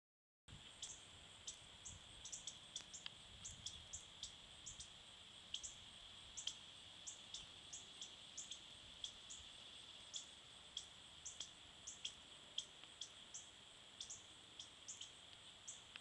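Northern cardinals giving sharp, repeated chip calls, two or three a second at uneven spacing. These are alarm calls scolding a cat outdoors.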